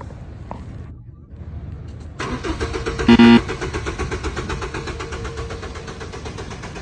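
Car engine cranking and catching about two seconds in, then running with a fast, even pulse. A brief, very loud pitched blast sounds about a second after it starts.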